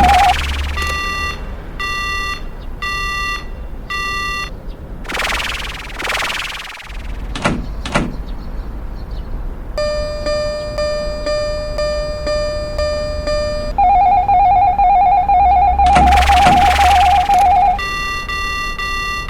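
Electronic signal sounds from a miniature railroad-crossing model fitted with an emergency telephone box. A pitched tone sounds four times about a second apart, then comes a loud rushing noise and a steady tone held about four seconds. After that a telephone ring trills for about four seconds, and the pitched tones return near the end.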